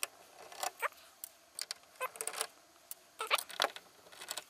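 Scattered small metallic clicks and ticks of a screwdriver working the screws that hold a DAT deck's tape mechanism in its metal chassis, coming in a few short clusters.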